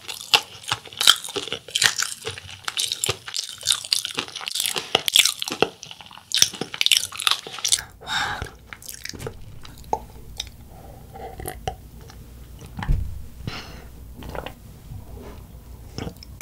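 Close-up crunching and chewing of a cheese corn dog coated in crushed instant-ramen snack: dense, sharp crunches for about the first seven seconds, then softer, sparser chewing.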